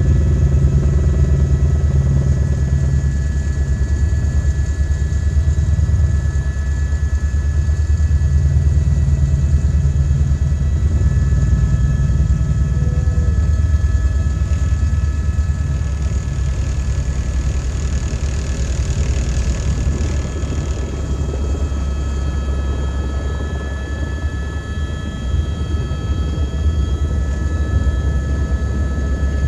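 Helicopter turbine engine and rotor running steadily: a dense low rotor chop under a thin, steady turbine whine of several high tones.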